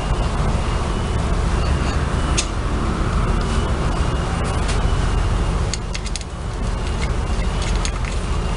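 Steady low rumbling noise with scattered sharp clicks and taps.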